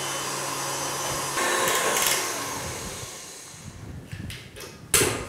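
KitchenAid Artisan stand mixer running with its wire whisk in a glass bowl of whipping cream, a steady motor hum that swells briefly, then slows and dies away about three seconds in. A few light clicks follow, with a sharp knock near the end.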